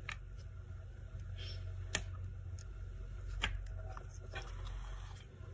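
A few light clicks and knocks as small graphics-card parts are handled and fitted during reassembly, over a steady low hum.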